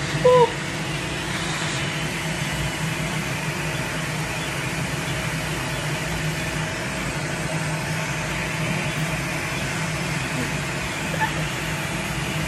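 Steady fan hum of running machinery, with a brief pitched blip about a third of a second in.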